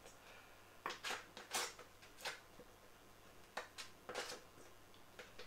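A knife slicing through a block of butter in its paper wrapper: about five short, faint scrapes and rustles.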